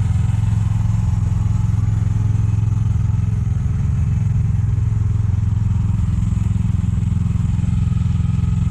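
An engine running steadily at a constant speed, a low even drone that does not rise or fall.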